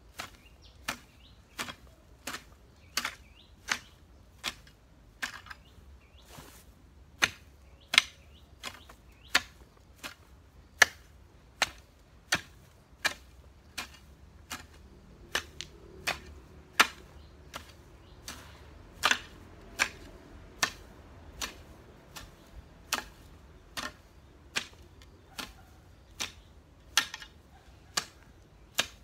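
Long-handled metal hoe chopping into garden soil and grass, a sharp strike about every two-thirds of a second in a steady, even rhythm.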